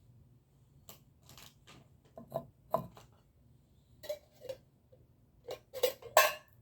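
Dishes and utensils clinking and knocking as they are handled: a string of short, sharp knocks, the loudest near the end.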